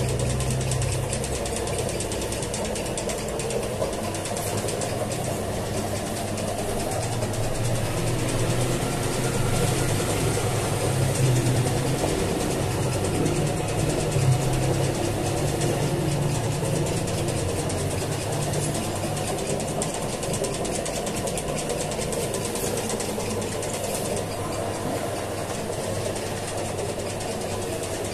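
Commercial bakery dough mixer running steadily as it kneads a large bowl of bread dough, with a continuous low motor hum.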